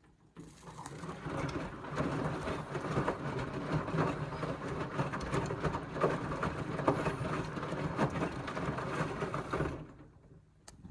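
Indesit washing machine's drum tumbling a full load of wet cottons during the rinse: motor running with water and clothes sloshing and knocking. The sound builds up over the first couple of seconds and stops near the end.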